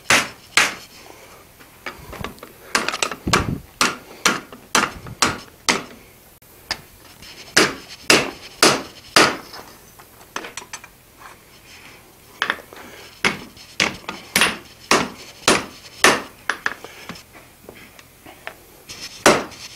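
Hand hammer striking a red-hot mild steel bar on an anvil: an irregular series of sharp, ringing blows with a couple of short pauses. The blows are straightening earlier bends in the bar back out.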